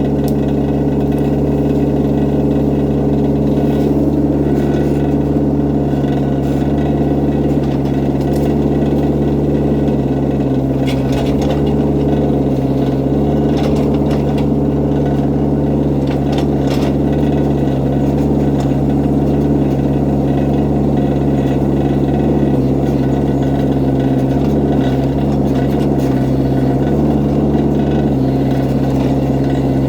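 Excavator engine running steadily at a constant pitch, with a few faint knocks between about 11 and 17 seconds in.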